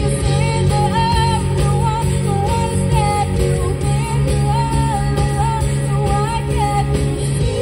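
Live band playing a pop-rock song: female voices singing the melody over electric guitars, bass, keyboard and drums.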